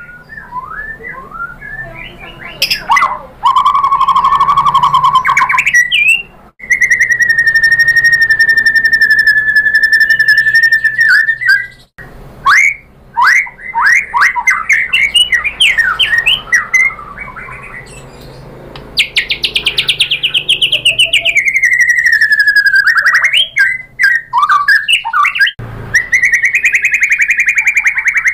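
White-rumped shama (murai batu) singing a varied song: a long level whistle, runs of quick sharp chips, and fast rattling trills, one falling in pitch about two-thirds of the way through and another near the end.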